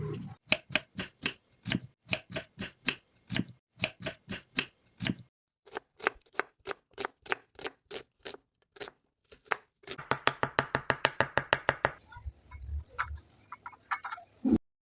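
Knife chopping salad vegetables on a cutting board in runs of quick, even strokes, about four or five a second, with a faster, denser run of cuts about ten seconds in.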